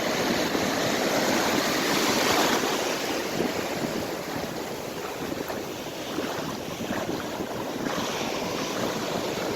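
Ocean surf washing on a beach, with wind buffeting the microphone; the noise swells and ebbs over several seconds.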